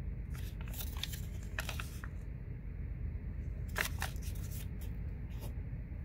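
Paper rustling as a folded instruction pamphlet is handled: a run of short rustles in the first two seconds, then a few more around four seconds in and once more near five and a half seconds.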